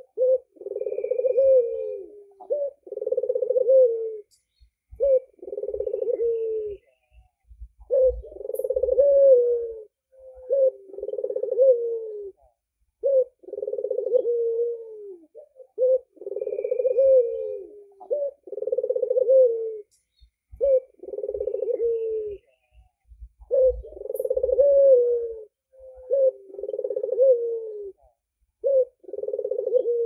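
A white albino puter (domestic Barbary dove) cooing over and over. Each coo lasts about a second and ends on a falling note, with short pauses between them.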